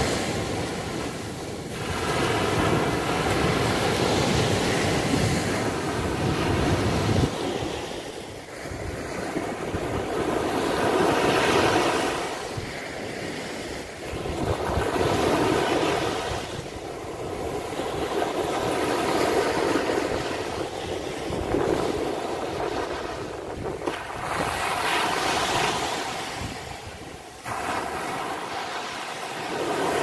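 Small sea waves breaking and washing up a sandy beach, the surf swelling and fading about every three to four seconds.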